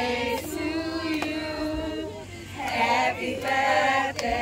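A group of voices, women's among them, singing a song together in long held notes, with a short break about two seconds in.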